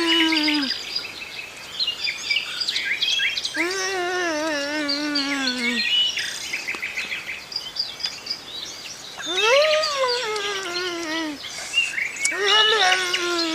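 Birds chirping rapidly and high, with a long wavering call that slides down in pitch, about two seconds long, heard three times.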